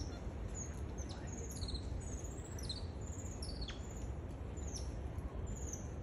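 High-pitched animal chirps in the forest canopy, coming as many short repeated notes and quick falling whistles. A steady low rumble runs underneath.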